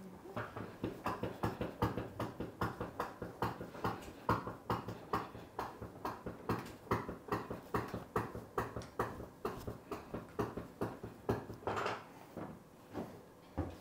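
A hydraulic salon styling chair being pumped up by its foot pedal, a rhythmic creak or clunk at each stroke, about two to three a second, stopping about twelve seconds in.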